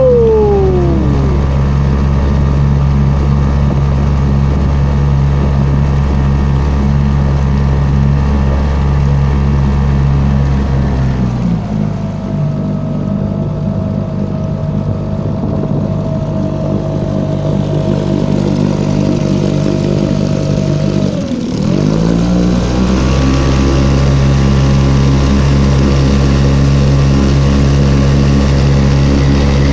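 Sharmax 4 petrol outboard motor running steadily under way on an inflatable boat. A little over a third of the way in its note drops to a lower, steadier speed; about two-thirds in it dips sharply, then picks back up and holds its earlier speed.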